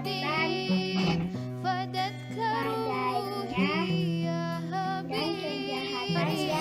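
Music with a child's singing voice: a wavering sung melody over steady held bass notes.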